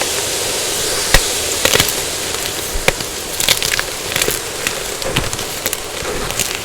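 Dyed gym chalk being crushed and crumbled: an irregular run of sharp crunches and crackles over a steady hiss.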